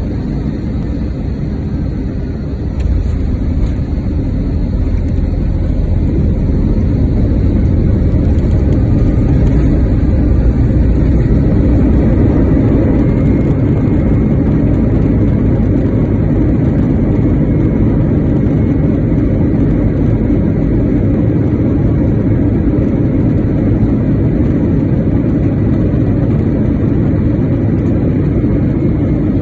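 Cabin noise of an Airbus A321 on its landing rollout: a loud, steady low rumble of engines and wheels on the runway. It steps up about three seconds in and builds for several seconds before holding level.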